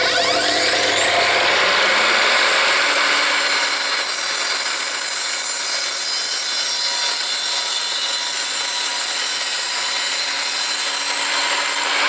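Evolution R255SMS 10-inch sliding mitre saw, its soft-start 2000 W motor rising in pitch over the first couple of seconds as it comes up to speed. It then cuts steadily and loudly through a square timber fence post with its multi-purpose blade.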